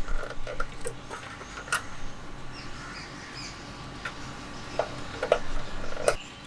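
Scattered sharp clicks and light knocks, about six of them a second or so apart, with faint short chirps in between.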